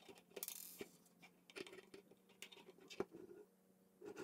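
Plastic K'NEX rods and connectors being pressed together and handled on a tabletop: a few faint, scattered clicks with a brief scrape or rustle about half a second in.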